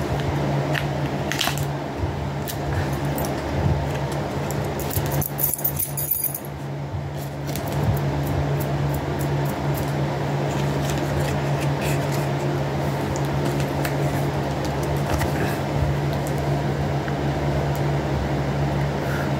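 Electric fan running with a steady hum throughout, with scattered light clicks and a brief jingly rattle about five seconds in as small items are handled.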